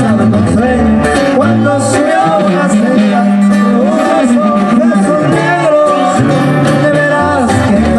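Live Mexican regional band music: a sousaphone holding low bass notes under guitars and drums, with a male voice singing.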